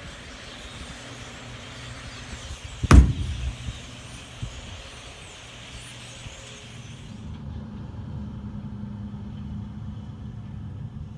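Motor vehicle engine running over a steady outdoor noise, with one sharp knock about three seconds in. About seven seconds in, the hiss suddenly drops away, leaving a steady low engine hum.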